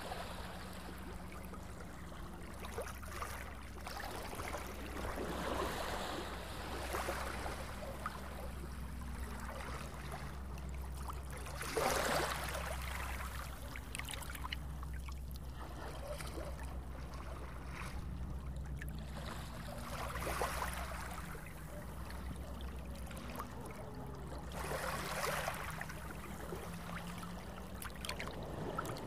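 Splashing, washing water over a steady low rumble. The water noise swells every few seconds, with a sharper splash about twelve seconds in.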